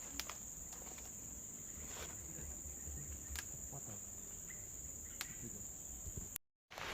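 Insects chirring in one steady high drone, with a few faint clicks; the sound drops out completely for a moment near the end.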